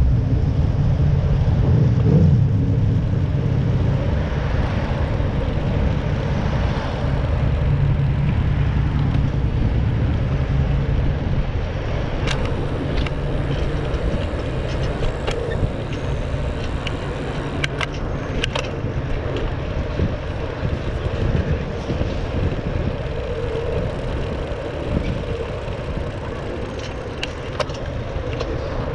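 Steady rumble of passing road traffic and wind on a GoPro's microphone while riding a bicycle along a busy road, with a few sharp clicks in the second half.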